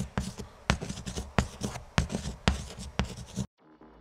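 Handwriting sound effect: quick, uneven scratchy strokes on a surface, stopping abruptly about three and a half seconds in.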